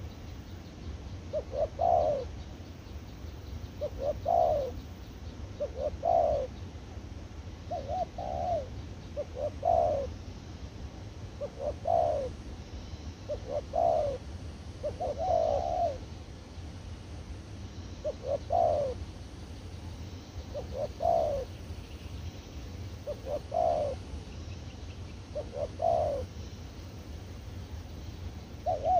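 Spotted dove cooing: a phrase of a few short soft notes running into a stronger coo, repeated about every two seconds. A low steady hum runs underneath.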